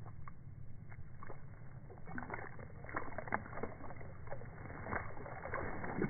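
A noisy miner splashing in a tub of water. A few light drips and flicks come first, then a busy run of slapping splashes and sloshing from about two seconds in, over a steady low rumble.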